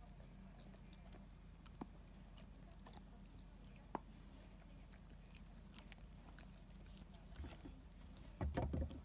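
Akita dog gnawing a wooden bird perch: faint, scattered clicks of teeth on wood, with a short, louder burst of chewing near the end.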